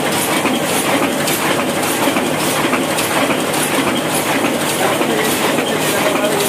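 Old Hashimoto sheetfed offset printing press running, a steady, loud mechanical clatter with a repeating rhythm.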